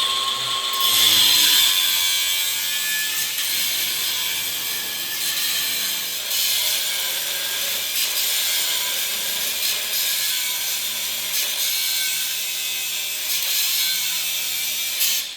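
An electric power tool's motor spins up, runs loud with a rough, gritty hiss and wavering pitch for about fifteen seconds, then is switched off and winds down.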